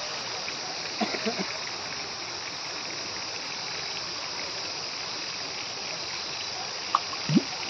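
Steady rushing hiss of flowing water, with a few light knocks about a second in and a short low thump near the end.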